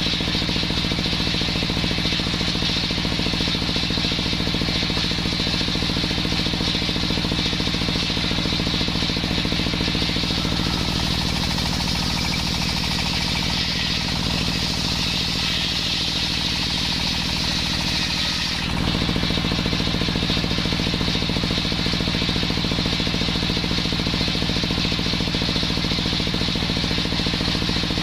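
Engine of a homemade circular saw running steadily with a fast, even firing beat. About a third of the way in its note drops a little, then near two-thirds in it suddenly snaps back to the higher note.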